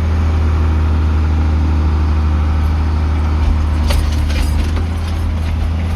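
Tractor engine running steadily in gear, pulling a disc harrow across dry, rough ground. A few short rattling clanks come about four seconds in.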